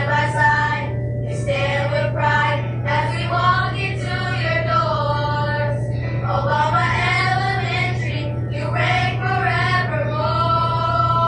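Children's school chorus singing a school song with musical accompaniment, held sung notes gliding in pitch over a steady low drone.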